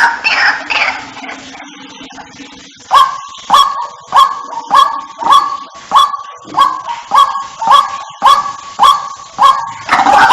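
White-breasted waterhen calls from a hunting lure recording. After a short quieter stretch, a fast, even series of sharp call notes starts about three seconds in, a little under two per second.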